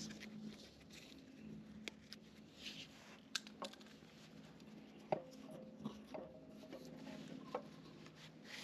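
Tools and small hard parts being handled during a heater repair: scattered light clicks and taps, a few of them ringing briefly, over a faint steady hum.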